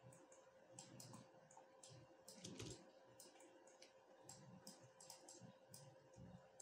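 Faint, irregular clicking of a computer mouse and keyboard over near silence, with a faint steady hum underneath.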